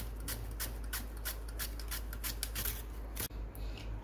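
Raw green banana being sliced by hand on a metal food-processor slicing disc: quick rasping strokes, about three a second, as the blade cuts off thin wafers. The strokes stop about three seconds in.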